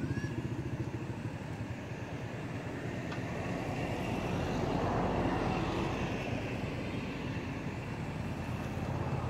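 Motor engine noise from a passing vehicle: it swells to its loudest about halfway through, then fades, over a steady low hum.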